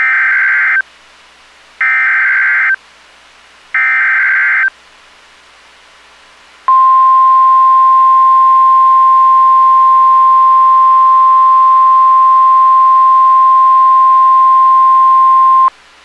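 NOAA Weather Radio Emergency Alert System tones: three short bursts of SAME digital header data, then the steady 1050 Hz warning alarm tone held for about nine seconds, the alert signal opening a tornado warning.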